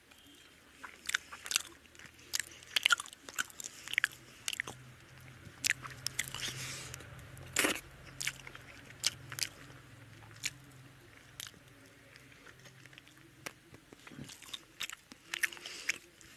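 A person chewing a mouthful of rice and fish curry eaten by hand, close to the microphone, with many sharp, irregular wet clicks and smacks of the lips and tongue. A faint low hum runs underneath through the middle of it.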